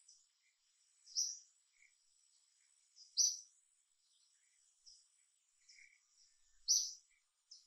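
A bird calling in short, high chirps: three loud ones a couple of seconds apart and a few fainter ones between, over a faint steady high-pitched hum.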